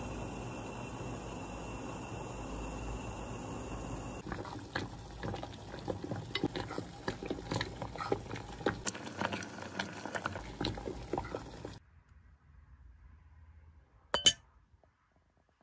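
Metal spoon stirring melting dark chocolate in an enamel bowl, clinking and scraping against the sides in quick irregular taps after a few seconds of steady hiss. The stirring stops abruptly, and one sharp clink comes near the end.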